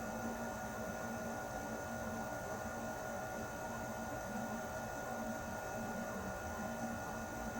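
Air conditioner running steadily: an even rush of air under a hum of several fixed tones.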